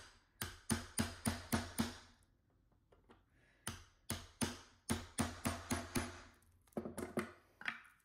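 A hammer tapping on a nail held as a punch against a Swiss Army knife's rivet, driving the rivet pin out. The sharp metallic taps come about three a second, in two runs with a pause of a second or so in between.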